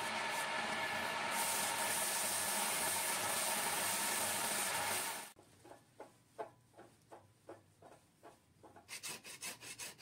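Electric wood lathe running with sandpaper rubbing against the spinning turned wood, a steady hiss over the motor's hum, until the sound cuts off about five seconds in. Faint knocks and clicks follow as the tailstock is backed off and the piece is taken off the lathe, quickening near the end.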